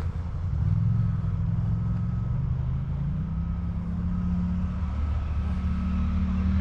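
Low, steady engine drone whose pitch drifts slowly upward, with a faint thin whine above it.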